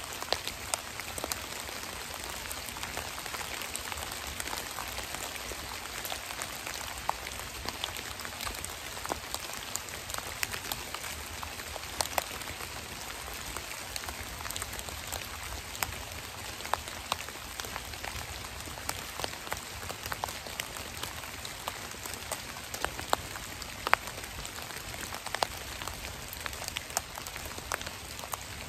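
Rain falling on forest leaf litter: a steady hiss of drops with many separate sharp ticks, some louder, as single drops strike the dead leaves.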